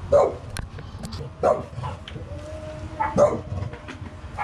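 A dog barking, three sharp barks about a second and a half apart.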